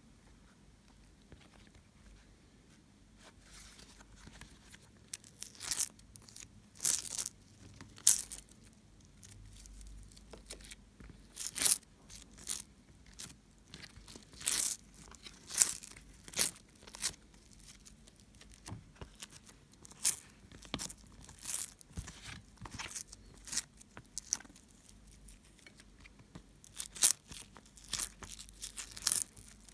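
Homemade slime being squeezed and stretched by hand, giving off irregular sharp crackles and pops, several a second at times, that begin about three seconds in.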